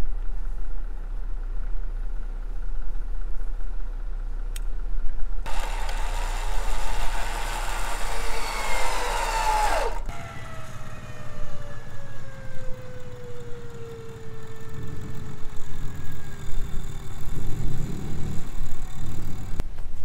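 Vehicle engine revving hard under load during a pull to free a pickup stuck in soft ground, with the revs falling away about ten seconds in; afterwards a lower engine note slowly drops in pitch. The pull does not free the truck, which digs itself down.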